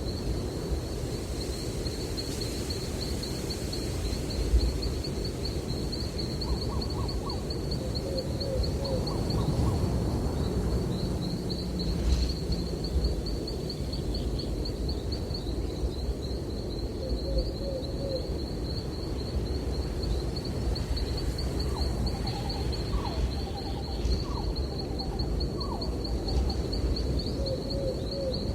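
Nature ambience: a steady, rapidly pulsing high trill like a cricket's runs throughout over a low rumble of breeze. Short groups of bird calls come now and then, most of them in the second half.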